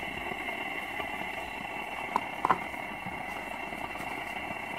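Steady hiss of a Coleman two-burner propane camp stove burning under a frying pan of oil. A couple of light sharp clicks come about halfway through.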